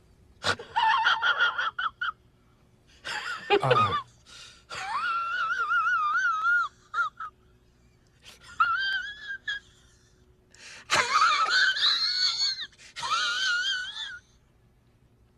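Zach Galifianakis's laugh sound effect: a man's high-pitched, wheezing laugh coming in about six breathy bursts, each with a wavering squeal in its pitch.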